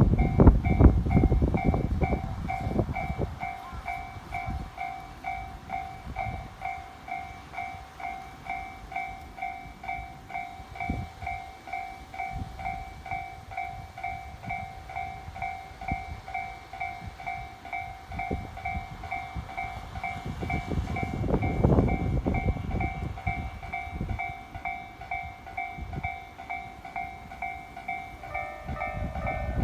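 Japanese railway level-crossing warning bell ringing steadily at about two strokes a second while electric commuter trains pass: one train's rumble fades out in the first few seconds and another rumbles by about twenty seconds in. Near the end a second crossing bell at a different pitch joins in.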